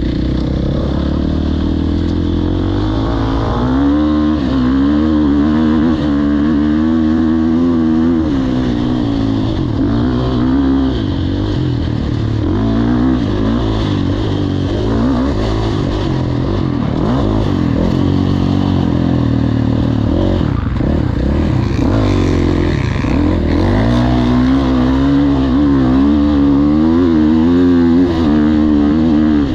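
KTM 450 SX-F dirt bike's single-cylinder four-stroke engine running under way, its pitch rising and falling with the throttle.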